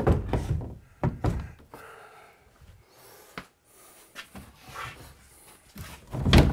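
Wooden pre-hung door unit knocking and bumping against the wooden studs as it is pushed into a rough opening, with scuffing between several separate thuds and the heaviest thud near the end. The unit catches on the framing of a rough opening that is not the same width from top to bottom.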